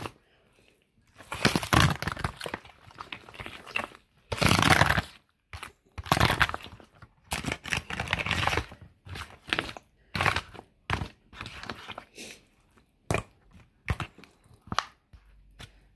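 A spoon stirring a thick, wet corn casserole mixture in a disposable aluminium foil pan: irregular scraping and squelching strokes with the foil crinkling. The strokes are longer at first and come shorter and quicker in the second half.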